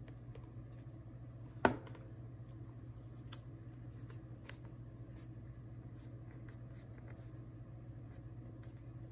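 Hands rubbing and pressing vinyl wrap onto a rifle magazine: faint scratchy rubbing and small ticks, with one sharp tap about two seconds in.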